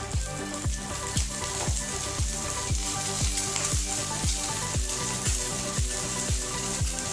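Egg sizzling as it fries in a nonstick frying pan, a halved frozen egg thawing out into the pan beside a halved boiled egg. Background music with a steady beat of about two kicks a second plays over it.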